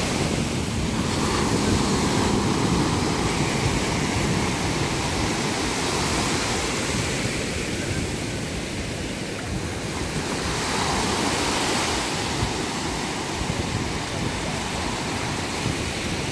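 Small sea waves breaking and washing up a sandy beach at the water's edge, a steady surf hiss that swells as waves come in, with wind buffeting the microphone.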